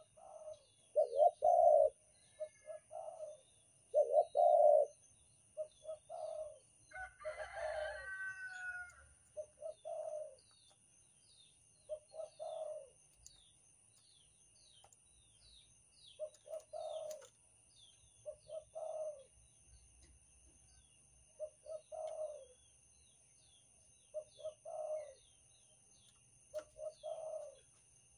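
Banten-type spotted dove (derkuku) cooing over and over in short phrases of a few low coos, repeated every two to three seconds, louder in the first few seconds. A different, higher call sounds about seven to nine seconds in, and faint high chirps run through the background.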